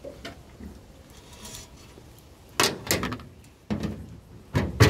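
Sharp metal knocks and clatter of hand tools working at the spark plug of a small Chinese generator engine. A couple of knocks come just past halfway, and the loudest cluster comes near the end.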